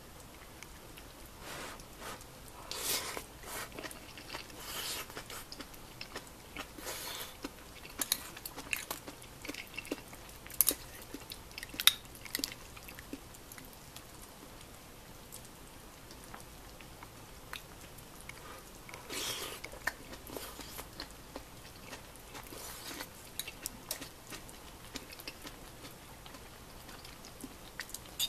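Close-up eating sounds: a person chewing mouthfuls of a tantan gyoza hotpot of bean sprouts, tofu and dumplings, with scattered short noisy bursts and a few sharp clicks, loudest about 10 to 12 seconds in.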